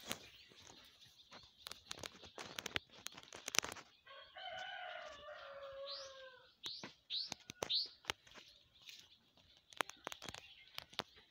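A rooster crows once, a single long call of about two and a half seconds beginning about four seconds in, followed by four short high chirps from a small bird. Scattered sharp clicks and knocks run through the rest.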